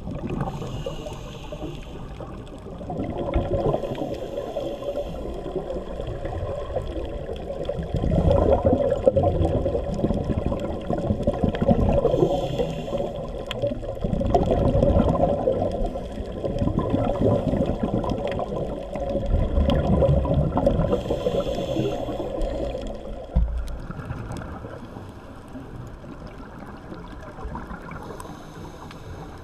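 Scuba diver's exhaled bubbles from the regulator gurgling underwater, coming in swells every few seconds with breaths, and dropping to a fainter steady wash of water noise near the end.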